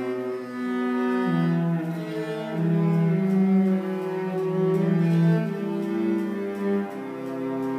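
Two cellos playing a slow duet: long bowed notes, a melody line moving over a lower line, each note held for about a second before changing.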